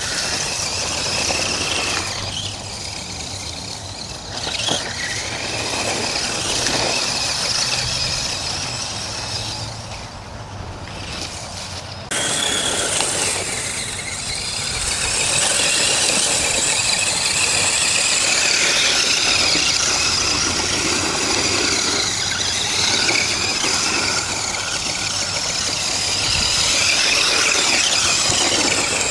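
Redcat Volcano EPX 1/10-scale RC monster truck's brushed electric motor and drivetrain whining at speed, high in pitch and rising and falling with the throttle, over the hiss of its tyres through dry leaves. The sound gets suddenly louder about twelve seconds in.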